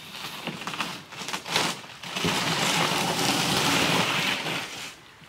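Cedar strip canoe's hull scraping over the gravel shore as it is pushed off into the water. A few light knocks come first, then about two seconds in a loud, steady scrape lasts about two and a half seconds before it stops.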